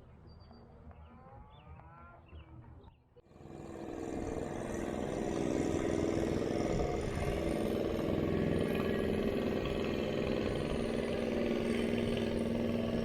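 Faint bird chirps, then, after a sudden cut about three seconds in, a motorboat engine running steadily and loudly.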